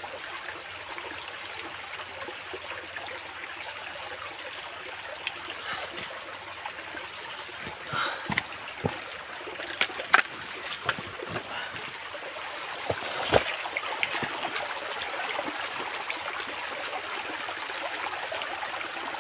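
Shallow rocky stream flowing steadily, with a scattering of sharp knocks and splashes in the middle, the loudest about halfway through.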